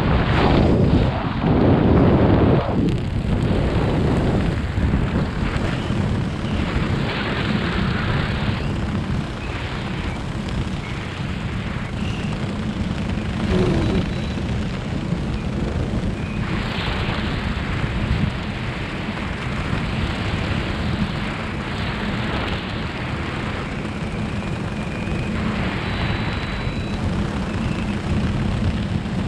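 Airflow buffeting the helmet camera's microphone during a parachute descent under an open canopy: a steady rushing rumble, loudest in the first few seconds and then evening out.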